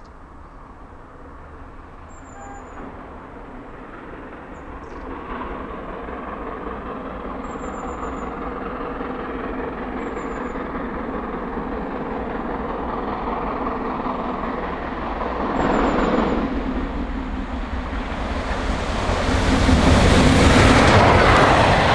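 GWR Castle-class four-cylinder steam locomotive No. 5043 working hard as it approaches and passes, its exhaust growing steadily louder and loudest near the end. Faint bird chirps sound now and then early on.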